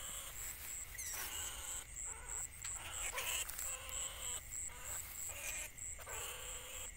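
Live rats in a wire cage trap giving harsh, rasping squeals in short spells of a fraction of a second to about a second, over an insect's steady pulsing high chirp.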